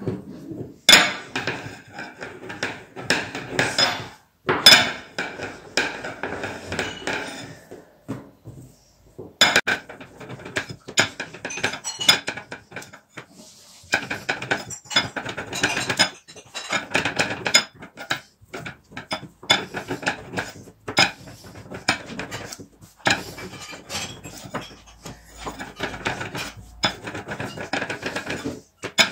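Thin oklava rolling pin rolling back and forth over dough on a floured table, clattering and knocking against the tabletop under the palms, in runs of quick clicks and taps with brief pauses between them.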